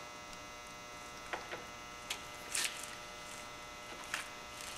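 A steady electrical hum, with a few faint clicks and rustles as hands work among the ATV's wiring and plastic cable covers.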